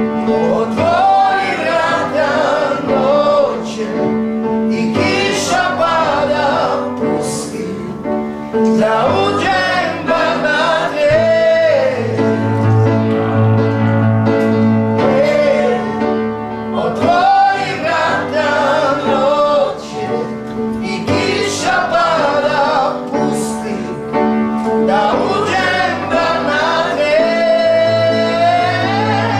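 A song: a man's voice singing a slow melody with long held notes over sustained instrumental backing.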